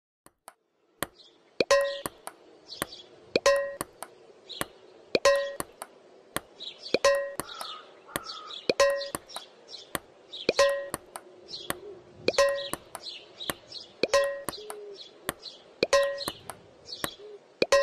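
Rhythmic plastic clacks of a toilet seat banging down, laid over ping-pong play. A louder clack with a short ring comes about every 1.8 seconds, with lighter clicks between.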